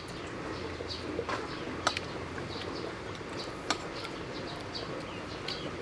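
Small birds chirping over and over in the background, with two sharp clinks of metal cutlery on a plate, about two and four seconds in.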